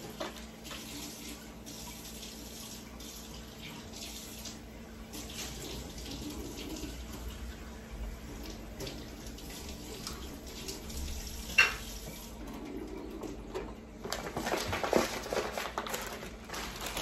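Water running steadily, as from a kitchen tap, with a single sharp knock about two-thirds of the way through and busier handling sounds near the end.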